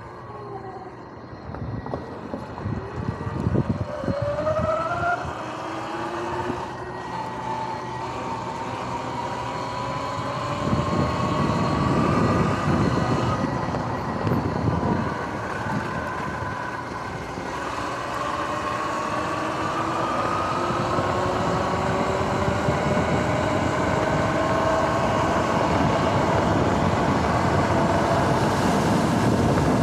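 Sur-Ron X electric dirt bike's motor and drive whining, the pitch rising several times as the bike speeds up. A rushing noise of air and tyres grows louder from about ten seconds in as the speed builds.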